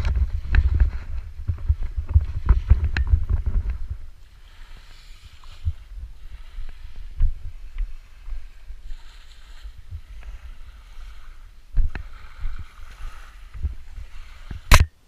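Water hissing and rushing past a Moth sailing dinghy, with wind rumble on the microphone that is heavy for the first few seconds, scattered knocks, and one sharp crack near the end.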